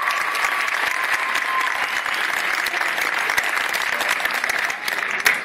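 Crowd clapping steadily, with a single high cheer held over it for the first second or so, thinning to a few separate claps near the end.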